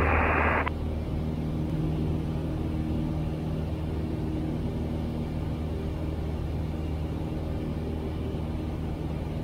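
Steady drone of a Piper PA-22 Tri-Pacer's piston engine and propeller in cruise, heard inside the cabin. A radio voice cuts off within the first second.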